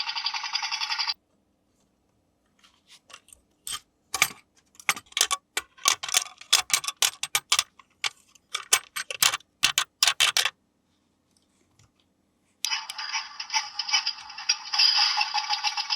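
A small electric toy motor buzzing stops about a second in. It is followed by a run of sharp plastic clicks and taps from a toy being handled, and the buzz starts again near the end.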